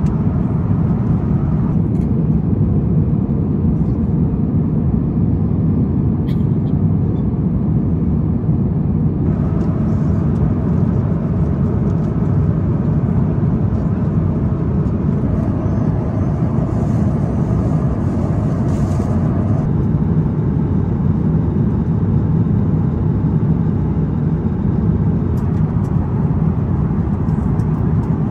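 Airbus A350-900 airliner cabin noise: a steady low rumble of engines and rushing air with no change in pitch, and a few faint clicks.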